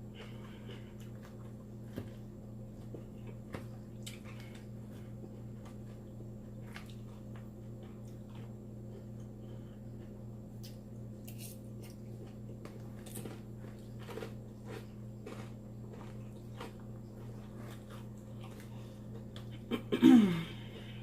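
Chewing salad with soft crunches and wet clicks, over a steady low hum. Near the end comes one loud burp whose pitch falls.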